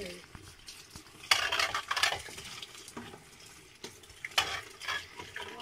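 Wooden spatula scraping and stirring through eggs and tomato sauce in a non-stick frying pan, with the sauce sizzling on the heat. There are bouts of scraping about a second in and again after four seconds.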